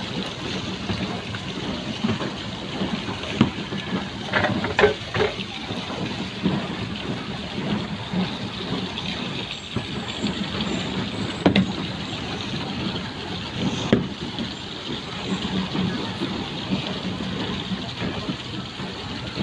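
Steady churning water and hum of a small pleasure boat moving across a pond, with a few faint knocks and distant voices.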